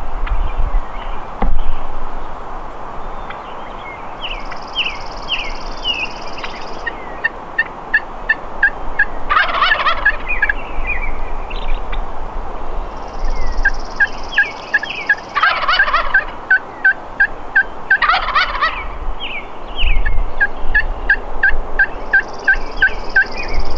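A wild turkey gobbler gobbling three times, about ten, fifteen and eighteen seconds in. Around the gobbles, songbirds keep singing with quick repeated chirping notes and thin high whistles.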